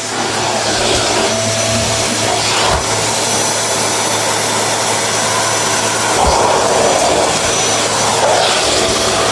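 Vacuum cleaner running steadily with a low hum under its rushing noise; the sound changes briefly about six seconds and eight and a half seconds in.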